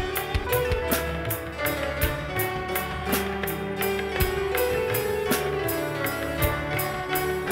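Live school orchestra of Indian and Western instruments playing: sitars, acoustic guitars, violins, flutes and tabla. Held melody notes run over a steady high percussion beat of about four strokes a second.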